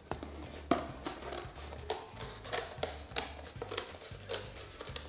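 Scissors snipping through corrugated cardboard: a run of short, sharp cuts, roughly a second apart and unevenly spaced.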